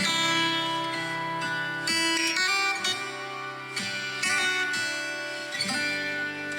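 Instrumental background music on a plucked guitar, with ringing notes and chords changing every second or two.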